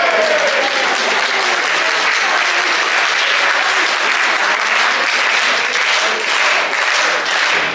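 Audience applauding, a steady dense clapping that carries on through the whole stretch.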